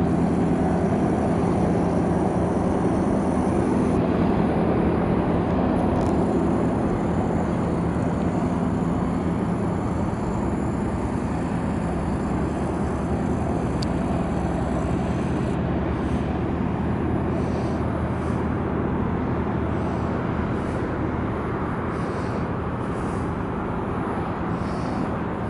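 Small fishing boat's engine running as it motors along the harbour, a steady drone that slowly fades as the boat moves away.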